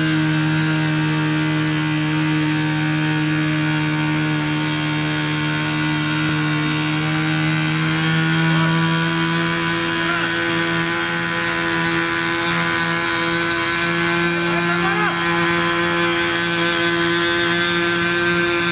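Small fuel-burning engine of a remote-controlled airship running steadily at an even pitch that edges up slightly about eight seconds in.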